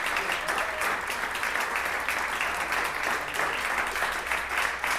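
Concert audience applauding steadily at the end of a performance, dense clapping from many hands.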